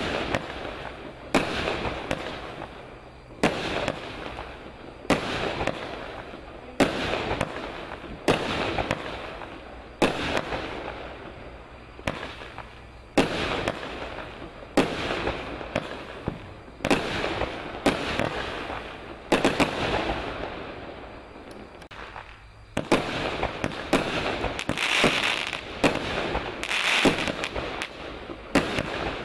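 Lesli Chain Smoker firework battery firing shot after shot: a sharp bang about every second and a half, each trailing off in a fading hiss and crackle. From about three-quarters of the way through the shots come faster, with denser crackling between them.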